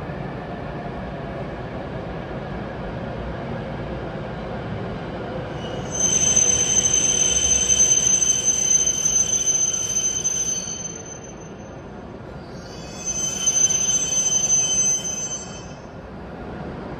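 Hokuriku Shinkansen train pulling into a station with a steady low rumble. A high, even-pitched brake squeal sets in about six seconds in, lasts about five seconds, and comes again more briefly near the end as the train slows to a stop.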